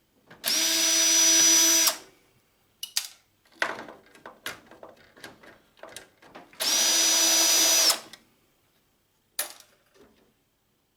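Handheld power drill/driver running in two short steady bursts of about a second and a half each, its motor giving a steady whine, as it backs out screws. Clicks and rattles of parts being handled come in between.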